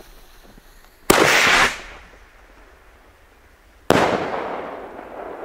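Fin-stabilised firework rocket (Rocket Strike): about a second in, a loud launch bang and the rush of its motor, lasting about half a second. Near the end comes the burst, a sharp bang that rings out and fades slowly.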